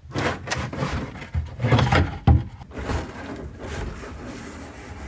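A car's headliner panel being worked and twisted out through a door opening: irregular rustling, scraping and bumping against the interior, with a sharp knock a little after two seconds.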